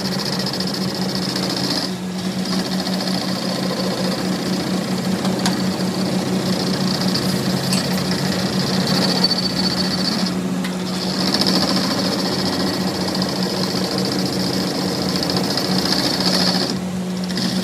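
Workshop machinery running steadily with a rapid, buzzing chatter and a steady hum. It eases off briefly three times.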